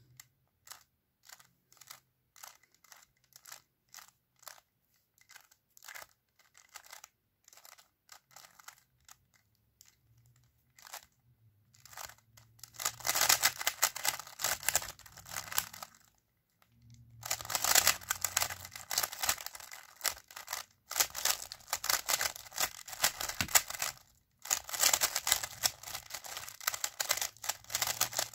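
A plastic 3x3 speedcube being turned by hand, first in separate clicking layer turns about twice a second, then, from about twelve seconds in, a fast, loud clatter of rapid finger-trick turns executing PLL algorithms. The clatter comes in bursts with short pauses between them.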